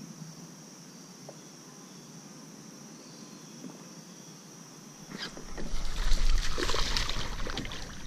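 Faint steady chirring of insects, then about five seconds in a loud stretch of splashing water as a hooked fish thrashes at the surface. The splashing lasts about three seconds and tails off.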